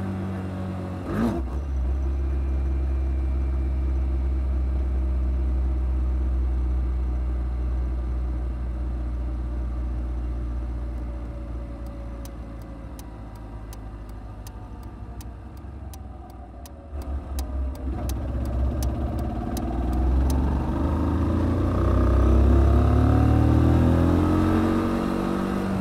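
Kymco Quannon 125 motorcycle engine heard from the rider's helmet, running at a steady speed, then easing off and going quieter for several seconds in the middle. Near the end it gets louder again and rises in pitch as it accelerates.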